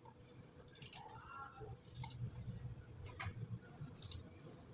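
A kitchen knife cutting fresh ginger held in the hand over a steel mixer jar, with a few short sharp clicks about a second apart as the blade cuts through and pieces drop into the jar.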